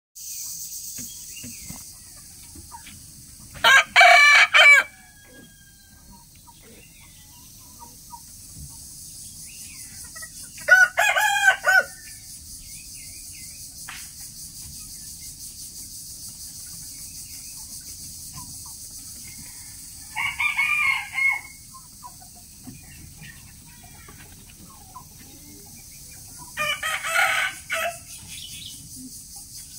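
Rooster crowing four times, each crow short, about a second long, several seconds apart. The first two crows are the loudest.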